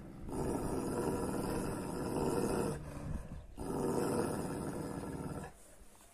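Large Kangal shepherd dog growling deeply at another dog: two long growls with a short break about three seconds in.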